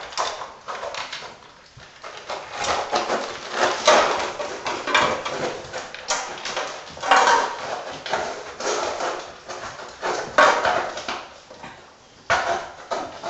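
Husky puppies eating dry kibble from a plastic bowl on a tile floor: crunching, the bowl knocking and sliding on the tiles, and claws clicking, in irregular bursts.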